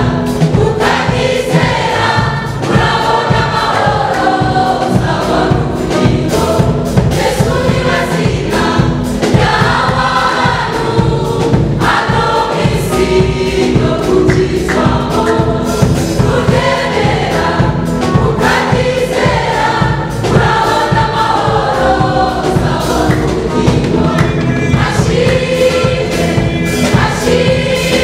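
Large mixed choir of men and women singing a gospel song in harmony over a steady beat.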